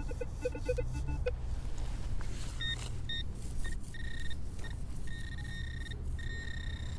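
Minelab Equinox metal detector giving a quick series of short low-pitched beeps in the first second. Then a handheld pinpointer probe sounds a high electronic tone, in short beeps at first and nearly continuous from about halfway, as it is worked over a target in the ground. A steady low rumble runs underneath.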